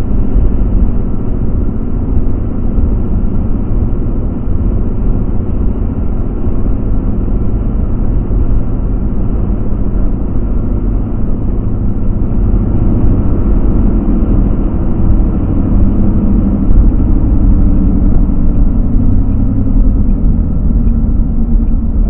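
A car driving on an open road, heard from inside the cabin: a steady rumble of engine and tyre noise.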